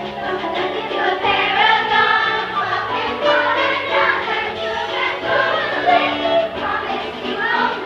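Music with a choir of voices singing held notes over a sustained accompaniment.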